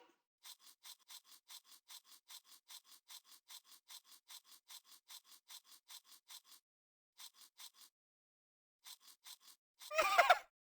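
Cat licking its fur: quick faint rasping strokes about four a second, stopping and starting again twice in short runs after pauses.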